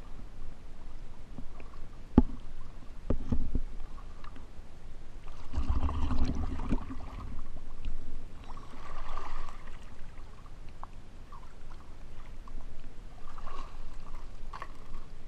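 Water splashing and sloshing right at the camera at the surface, with a few sharp knocks early on and a louder stretch of splashing about six seconds in.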